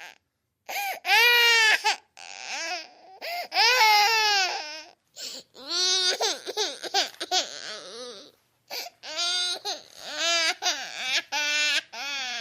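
Baby crying: a string of short, high-pitched wailing cries that bend up and down, in separate bouts with dead-silent gaps between the edited clips. The loudest cries come about a second in and again about four seconds in.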